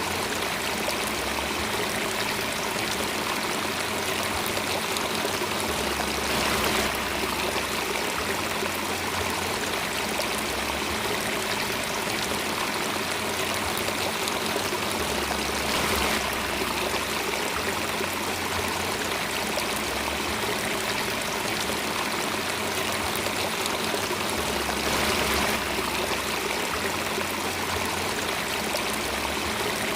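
Steady running water of a stream, a continuous trickling flow, with a brief slight swell about every nine seconds.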